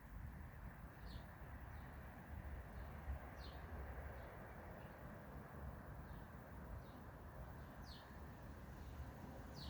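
Faint birdsong in a forest: short, high chirps that slide downward in pitch, a few seconds apart, over a steady low outdoor rumble.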